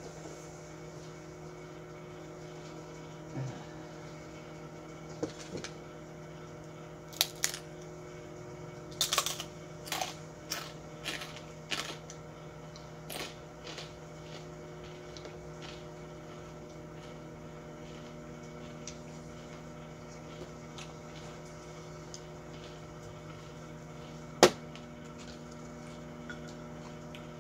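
Microwave oven running with a steady hum, cooking potato slices. A scatter of sharp clicks and ticks comes between about 7 and 14 seconds in, and one louder click near the end.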